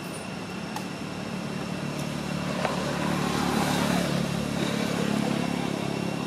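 A motor vehicle passing by, its engine and tyre noise growing louder to about four seconds in and then slowly fading, over a steady high-pitched hum.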